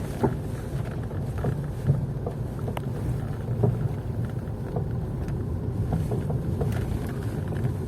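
Range Rover Evoque driving, with a steady low road rumble and irregular sharp knocks from the left front suspension about once a second. The knocking is the sign of a front anti-roll bar link worn loose, its boot torn, alongside a worn front wheel bearing.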